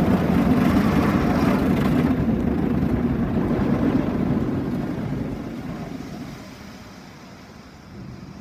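Mark VII ChoiceWash XT rollover car wash spraying rinse water over the car, heard from inside the cabin: a loud, steady rushing of water over a low machine hum. The spray thins about two seconds in, and the whole sound fades away over the last few seconds as the gantry moves off.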